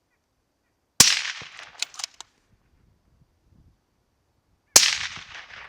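Two shots from a 6.5 Creedmoor rifle, nearly four seconds apart, each trailing off in a decaying echo. One or two faint sharp cracks follow about a second after each shot.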